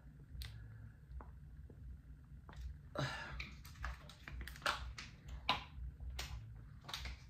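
Sour cream squeezed from a plastic squeeze pouch, then the pouch handled and folded. Irregular short, soft clicks and crinkles, growing more frequent about halfway through.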